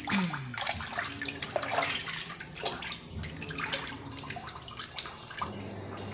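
Water splashing and sloshing in an irregular way as hands rub and rinse raw chicken pieces in a sink full of water. A short falling tone sounds at the very start.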